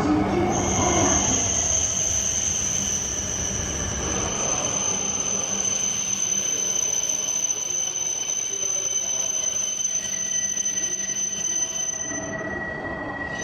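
A train's steel wheels squealing against the rails: one steady high-pitched squeal that starts about half a second in and cuts off near the end, over the rumble of the train running past.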